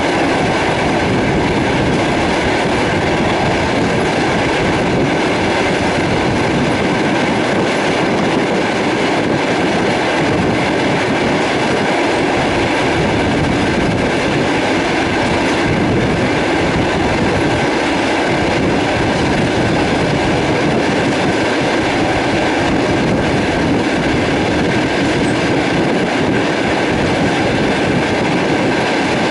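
Passenger train running along the track, heard from aboard: a steady loud rumble and rattle of wheels on rails.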